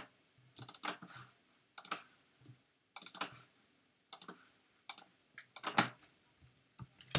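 Computer keyboard being typed on in short runs of keystrokes about every second, with brief pauses between them.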